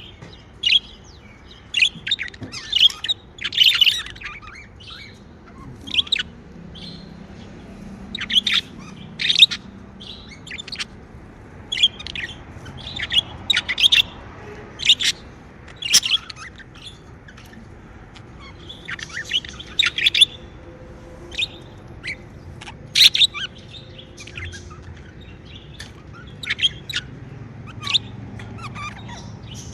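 Pet budgerigars chirping: short, high calls coming irregularly, one or a few at a time, with brief pauses between.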